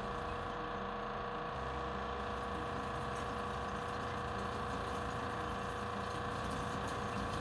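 Small electric water pump running with a steady hum, pushing river water through the line to a boat's toilet flush. Its sound gets slightly deeper and fuller about a second and a half in.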